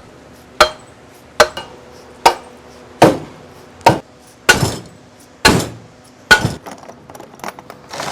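A hammer striking steel front suspension parts (control arm and ball joint): about eight hard, evenly paced blows, roughly one a second, each with a short metallic ring, then a few lighter taps near the end.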